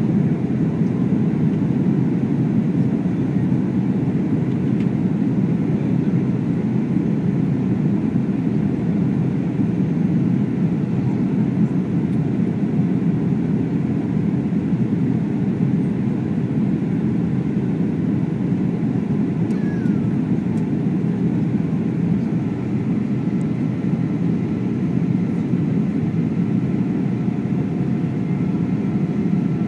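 Steady cabin noise of a Boeing 737 on descent to land, heard from a window seat beside the turbofan engine: an even, low rumble of engine and airflow.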